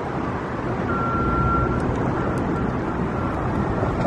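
Steady low outdoor rumble of city background noise, with a thin, steady high whine that comes and goes from about a second in.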